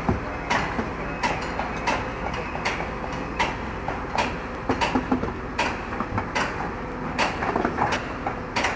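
Excavator diesel engines running steadily, with irregular sharp metallic clanks and knocks, a few each second and thickest about halfway through.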